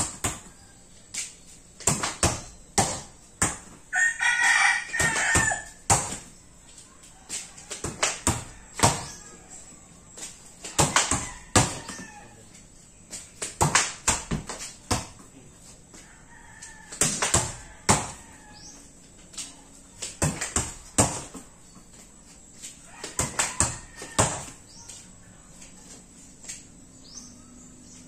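A volleyball being bounced on the floor and struck by hand: sharp slaps and bounces in short bursts every few seconds. A rooster crows once about four seconds in.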